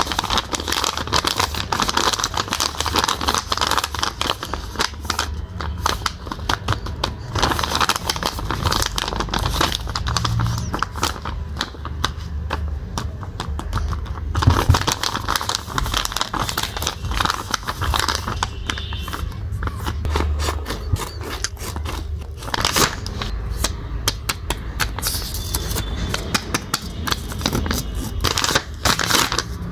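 Sheets of a homemade paper blind bag rustling and crinkling as they are handled, flipped and unfolded by hand, with dense crackling throughout.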